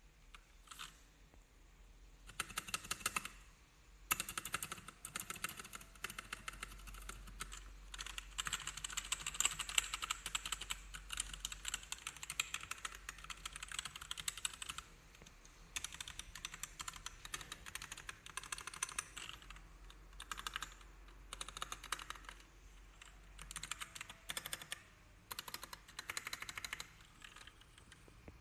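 Typing on a mechanical gaming keyboard with red linear switches: fast runs of key clicks in several bursts, broken by short pauses, with the longest run in the middle.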